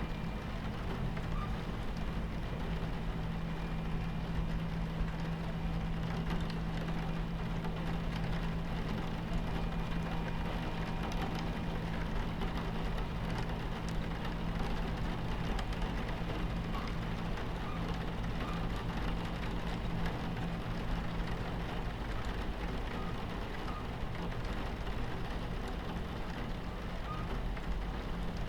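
Train cabin ambience: the steady low rumble of a moving train with rain against the window, over a low hum that weakens about two-thirds of the way through.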